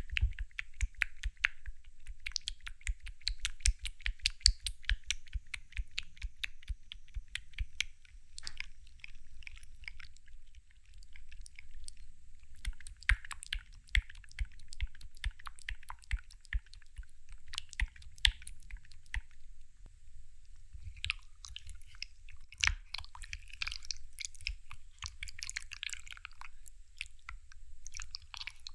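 Close-miked chewing of ice jelly: a dense, continuous run of small crackling crunches with the occasional louder bite.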